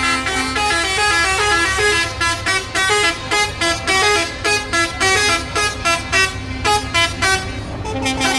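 A musical truck horn plays a quick tune of short stepped notes, starting and ending on a held horn note, over the low rumble of a truck's diesel engine.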